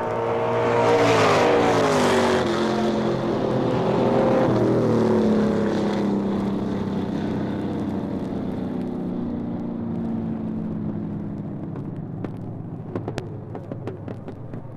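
An engine-driven vehicle passing by: its engine pitch drops as it goes past, and the sound fades slowly away, with a few sharp clicks near the end.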